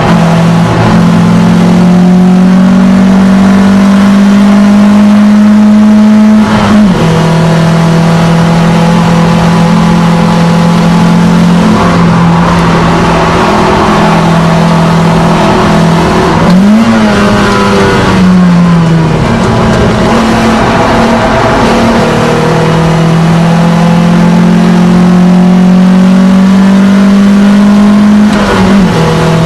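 Alfa Romeo GTV engine heard from inside the cabin, driven hard on track: its note climbs slowly under acceleration and drops sharply at each gear change or lift, about five times, loud throughout.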